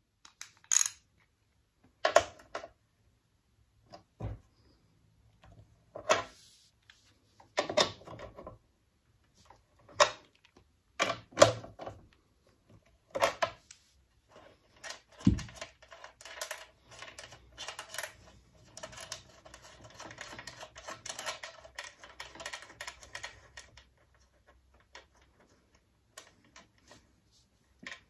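A socket ratchet clicking and metal tools clinking as nuts are undone on the pull-start cover of a Suffolk Super Colt mower engine. Separate sharp clinks come every second or two through the first half, then a run of rapid clicking lasts several seconds.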